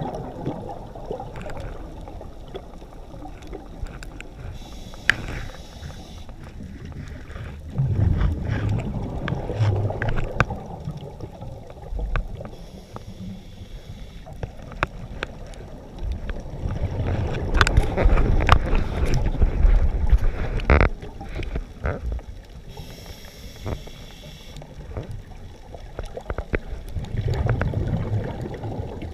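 Scuba diver breathing through a regulator, heard underwater: a short hiss of inhalation followed by a low, gurgling rush of exhaled bubbles, about three breaths in all, with scattered sharp clicks throughout.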